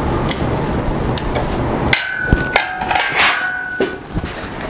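Heavy steel frame clanging as it drops: a run of sharp metal-on-metal impacts starting about halfway through, the first ones ringing on with a clear tone. A steady noise fills the first couple of seconds.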